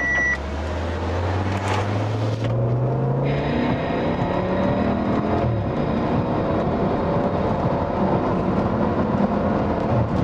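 Audi RS 6 accelerating past, its engine note climbing in pitch over the first few seconds, then a steady rush of engine and road noise as it carries on down the road.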